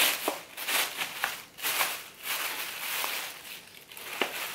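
Thin black plastic carrier bag rustling and crinkling in irregular bursts as it is wrapped and folded around a tray.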